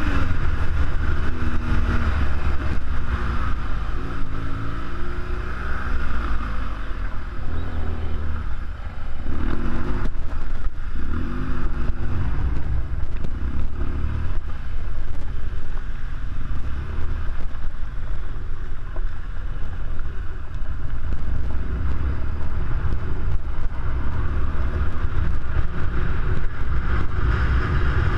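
BMW R1200GS Adventure's air/oil-cooled boxer-twin engine running on the move, its pitch rising and falling repeatedly as it is revved up and eased off; it dips briefly about nine seconds in before pulling again.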